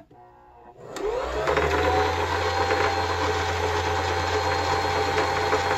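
Brother sewing machine's motor winding the bobbin under foot-pedal control. It starts about a second in, whining up in pitch as it speeds up, then whirs steadily at full speed.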